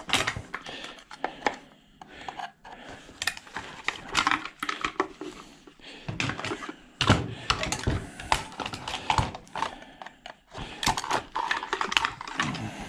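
Prying apart a refrigerator ice maker assembly by hand: irregular clicks, snaps and clatter of plastic and metal parts.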